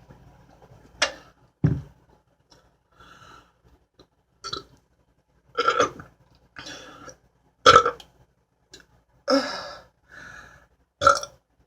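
A woman burping from drinking beer: a string of short burps, about one every second or two, with quieter breaths between them.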